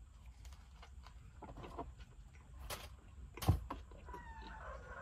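A wavering screech, a little over a second long, starting about four seconds in: an awful screeching sound. It is preceded by a few sharp clicks, the loudest a second before it.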